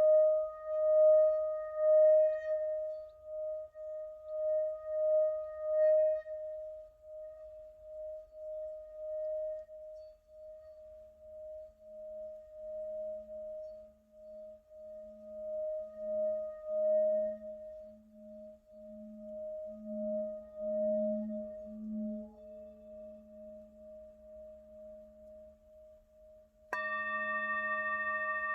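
Singing bowl ringing with a slow, regular waver in its tone, about once a second. A deeper hum fades in partway through and swells. Near the end the bowl is struck sharply and rings out bright and steady with higher overtones.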